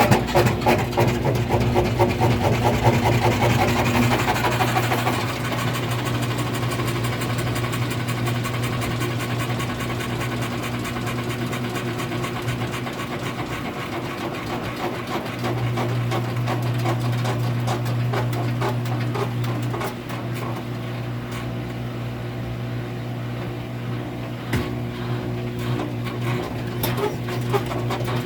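A small machine running with a rapid, even ticking over a steady low hum. The hum grows louder about halfway through and eases off a few seconds later.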